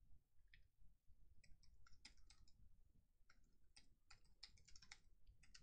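Faint typing on a computer keyboard: irregular runs of quick key clicks, busiest about two seconds in and again four to five seconds in.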